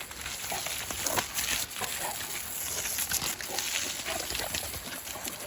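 Dogs chasing and snapping at a spray of water from a hose: water spraying and splashing, with irregular short scuffs and splashes.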